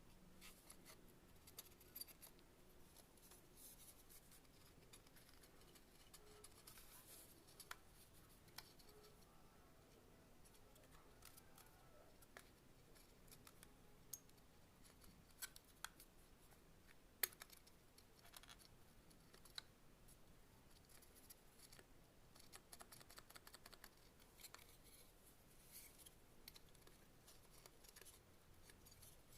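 Quiet handling noises from work at a bench: scattered faint clicks and scratches, with one sharper click about seventeen seconds in.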